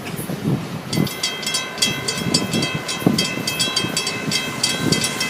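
Florida East Coast Railway freight cars rolling past, wheels thumping over the rail joints. About a second in, a grade-crossing bell starts ringing in fast, regular strokes.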